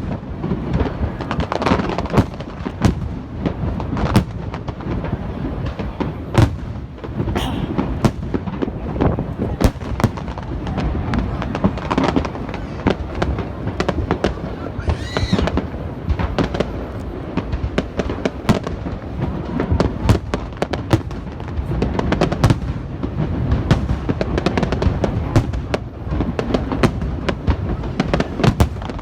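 Fireworks display: a dense, continuous barrage of shells bursting with bangs and crackles, several a second, with a brief whistle about halfway.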